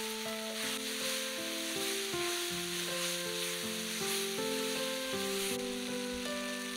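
Vegetables and greens sizzling as they are stir-fried in an iron wok, stirred with a wooden spatula, the hiss easing a little near the end. A slow background melody of held notes plays over it.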